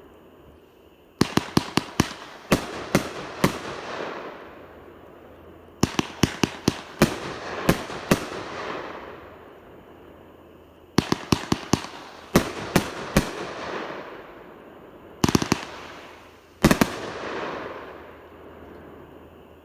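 Shogun 'Booms Day Device' 500-gram firework cake firing its shots: volleys of rapid sharp bangs every few seconds, each volley trailing off in a fading tail, with two last single bangs near the end.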